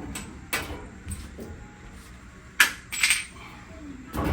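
Metallic clinks and knocks of dryer parts being handled, a scattering of separate hits with the loudest pair about two and a half and three seconds in.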